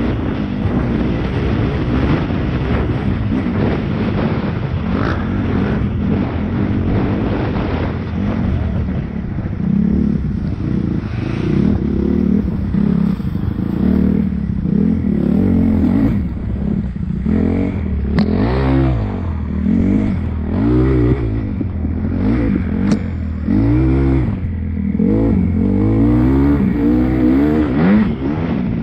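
Dirt bike engine revving up and down over and over as it is ridden hard on a dirt track, heard from on the bike, with short knocks and clatter from the bike over the rough ground.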